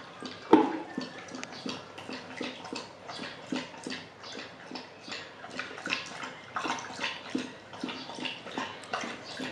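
Golden retriever lapping from a plastic bowl, a steady run of wet slurping strokes about two a second. About half a second in, a single sharp knock as the bowl is set down on the tile floor.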